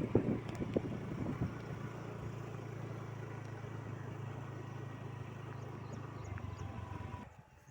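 A motor vehicle's engine running with a steady low hum, with a few knocks in the first second or so; the sound drops away suddenly near the end.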